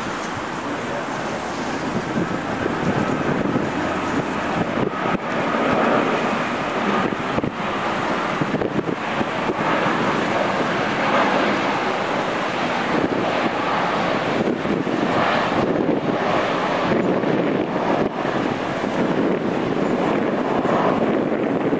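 Steady highway traffic noise: cars passing one after another in a continuous rush.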